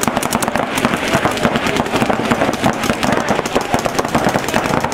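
Paintball markers firing rapid, overlapping strings of sharp pops, many shots a second, with no let-up.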